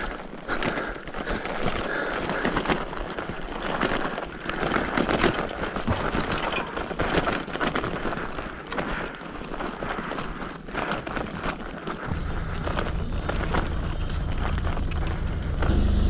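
Touring bicycle rolling over a rough road: a crackling rush of tyre and ride noise full of small clicks. About three-quarters of the way through, a low steady rumble comes in under it and grows louder.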